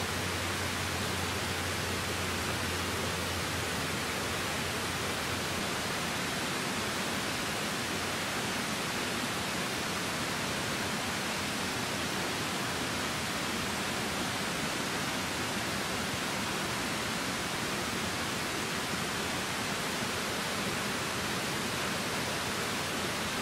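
Small woodland creek running, a steady, even rush of flowing water.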